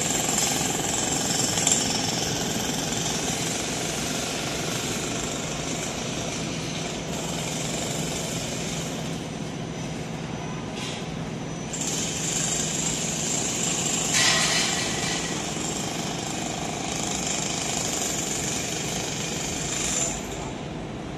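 A jackhammer breaking up platform concrete, running continuously as a fast, even rattle of impacts, with a louder spell about fourteen seconds in.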